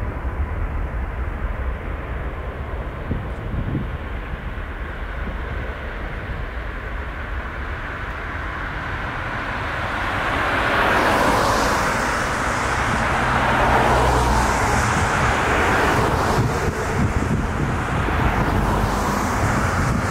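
Jet airliner engines, a steady rushing roar with a low rumble that grows louder about halfway through as the aircraft comes closer.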